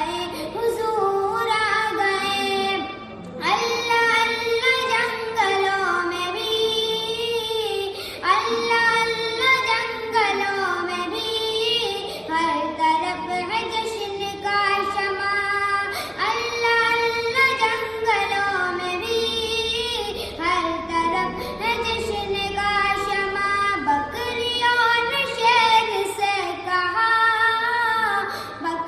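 A naat, an Islamic devotional song, sung in a high voice in ornamented phrases of about four seconds each, over a held backing tone that shifts pitch with each phrase.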